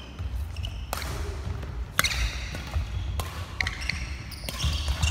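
Badminton rackets striking a shuttlecock in a doubles rally: four sharp hits about a second apart. Sports shoes squeak briefly on the wooden court floor between hits, over the thud of footfalls.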